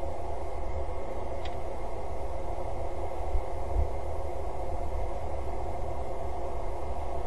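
Steady background rumble and hiss picked up by an outdoor webcam microphone, with one faint click about one and a half seconds in.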